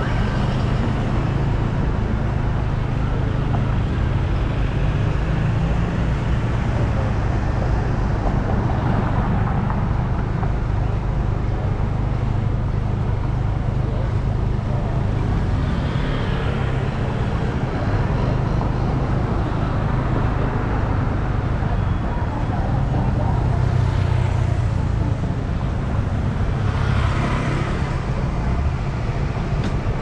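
Road traffic: a steady rumble of engines and tyres, with vehicles swelling and fading as they pass close by several times.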